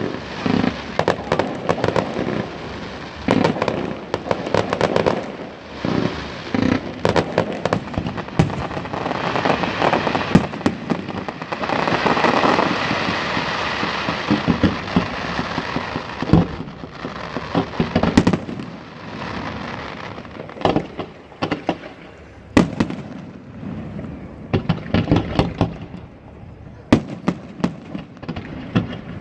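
Fireworks display: a quick string of bangs and crackles, merging into a dense, continuous crackle near the middle, then thinning to scattered single bangs, a few of them sharp and loud.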